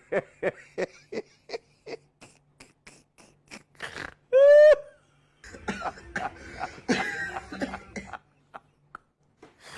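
A person's voice making short, rhythmic non-speech bursts, about three a second, then one brief drawn-out cry about four and a half seconds in, followed by rougher coughing-like vocal noise that stops about eight seconds in.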